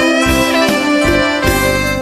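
Instrumental break in a song: a horn melody of held notes over a steady drum beat.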